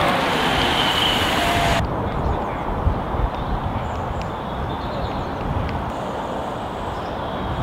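Outdoor road ambience with wind rumbling on the microphone as road cyclists ride past; a hissing noise in the highs cuts off suddenly about two seconds in.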